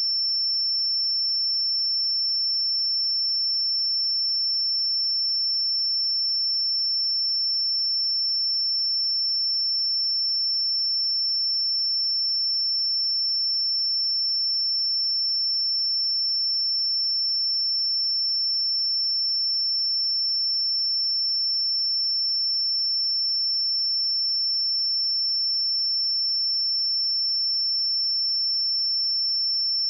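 A steady, unbroken pure sine-wave test tone at 5384 Hz, a single high-pitched whistle-like pitch that does not change in pitch or loudness.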